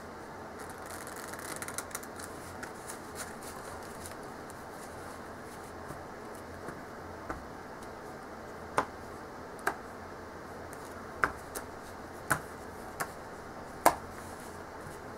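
Playing cards being handled: a brief run of soft rapid ticks as packets are pushed and riffled together, then a series of sharp, separate clicks as single cards are flipped and dealt, louder in the second half. A steady hiss sits underneath.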